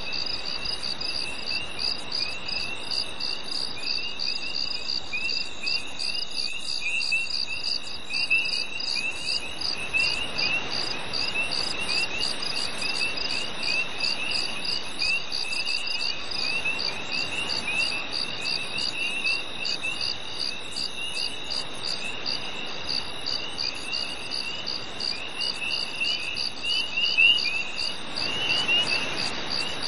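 Crickets chirping on a summer night: one chirps evenly about twice a second over a steady high trill, while another chirps more irregularly a little lower in pitch, over a faint hiss.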